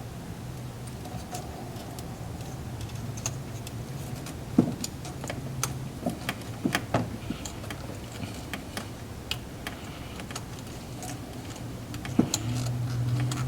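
Scattered light clicks and knocks of hand tools, brackets and screws being handled while parts are fitted back together, with a few sharper knocks in the middle and one near the end. A steady low hum runs underneath and grows louder near the end.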